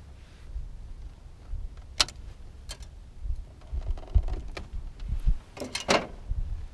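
Hands working small wires into spring-clip terminal connections: scattered sharp clicks and small knocks, with a cluster of clicks near the end, over low handling thumps.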